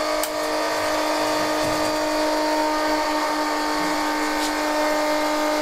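An electric motor running at a constant speed with a steady, unchanging whine and a hiss of air above it.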